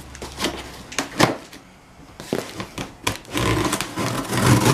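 A cardboard parts box being opened and handled: scattered knocks and rustles, then a longer stretch of scraping and tearing near the end.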